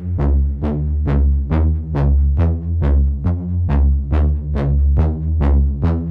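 Techno house music: an electronic dance track with a steady drum-machine beat about twice a second over a deep synthesizer bass line.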